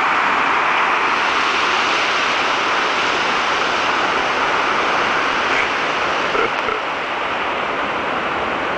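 Steady rushing of running water from a stream or small waterfall.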